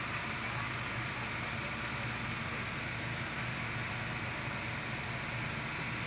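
Slow boat's engine running steadily, a constant low drone heard from inside the wooden passenger cabin.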